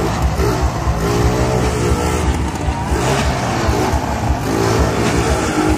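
Motorcycle engine revving in repeated surges, its pitch rising and falling, as the bike climbs the inside of a vertical loop.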